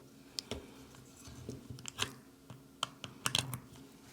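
Scattered light clicks and taps of small electronics being handled: a battery and cable being fitted to a mini speaker for a charging-current check, with a cluster of clicks a little past three seconds in.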